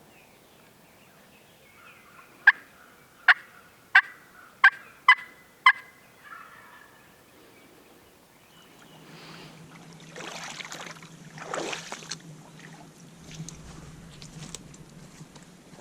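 Wild turkey calling, six loud, sharp notes in a row. Later comes a longer stretch of rough rustling noise, loudest about ten to twelve seconds in.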